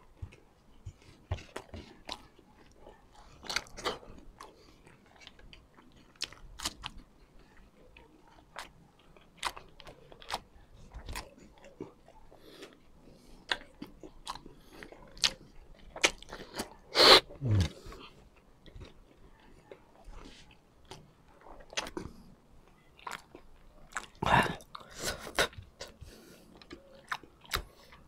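A man chewing and biting food close to the microphone, a mukbang eating sound: irregular mouth clicks and crunches. The loudest sound comes about two-thirds of the way through and ends in a short falling sound.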